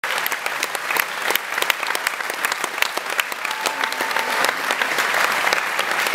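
Audience applause: many hands clapping in a dense, steady patter.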